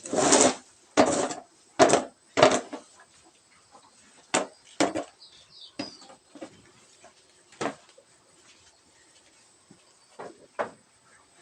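A series of irregular knocks and clatters, several loud ones close together in the first few seconds, then fewer and fainter ones spread out.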